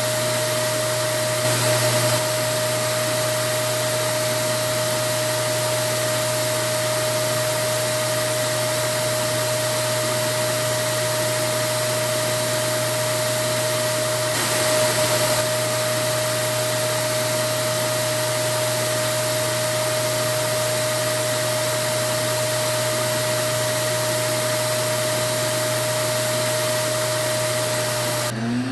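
A vacuum cleaner running steadily with a whooshing air noise and a constant hum. The noise swells slightly twice. Near the end the hum cuts off and a rising whine starts.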